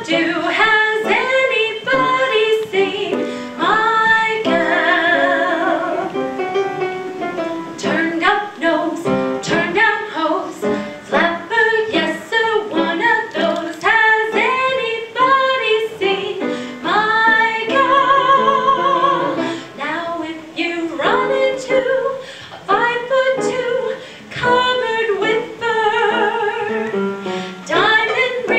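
A woman singing a solo song, with vibrato on the long held notes.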